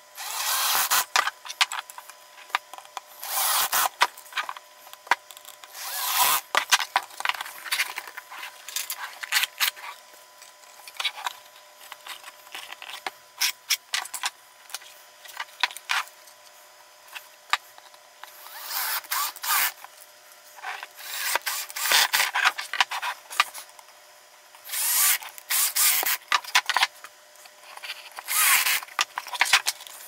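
Cordless drill-driver running in short bursts of a second or two, driving screws into wood, about seven times. Knocks, clicks and scraping of wooden parts being handled come in between.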